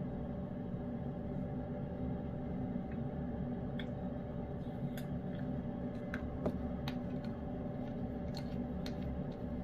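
Lynx point cat eating wet food in gravy: scattered small, irregular clicks of chewing and licking. A steady low hum runs underneath.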